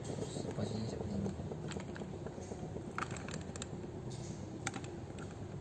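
A few scattered light clicks and taps as a thin cutting disc is handled and seated onto the spindle flange of an angle grinder that is switched off, over steady low room noise.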